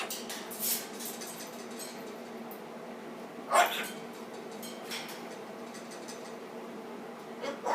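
Cockatoo making a few short, soft noises a couple of seconds apart, the loudest about three and a half seconds in. A steady low hum runs under them.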